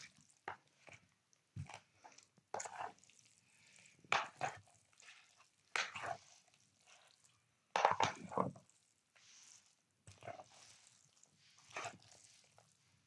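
Wet noodle salad with chicken and dressing being stirred with a spoon and then turned over by hand in a plastic bowl: irregular squishing, rustling strokes a second or two apart.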